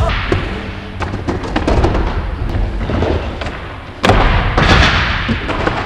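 Skateboard wheels rolling and rumbling over wooden ramps and concrete, with scattered clacks of boards and trucks. A loud board impact about four seconds in dies away over a second or so.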